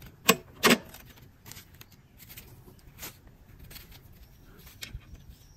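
Sharp snips as each blade of a Yardforce LM C38 reel mower cuts test paper against the bed knife. Two loud snips come in the first second, then fainter ones about a second apart. This is the cut test of the freshly backlapped reel, where clean snips show the blades are sharp.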